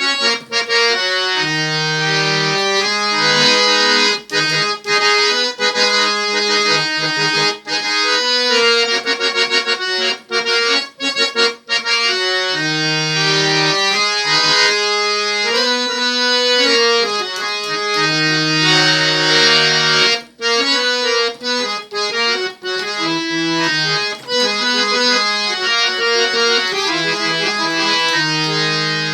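Harmonium playing a melody on its male-male-female reed sets with the coupler on, a mix of held and moving notes with a few short breaks between phrases.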